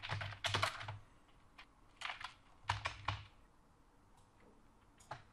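Typing on a computer keyboard: short bursts of keystrokes separated by pauses, with a single keystroke near the end.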